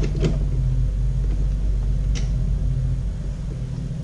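A steady, low engine drone, with a few light clicks and rattles of small parts being handled near the start and again about two seconds in.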